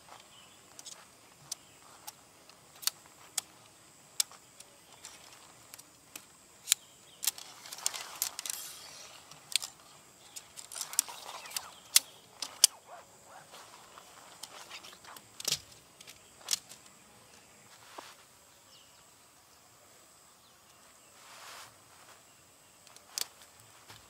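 Tent pole sections clicking and clinking together as the poles of a Naturehike tent are handled and assembled: irregular sharp clicks, with short rustles of handling about a third and half of the way in.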